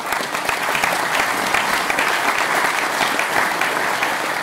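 Audience applauding: many people clapping together, starting sharply and holding steady.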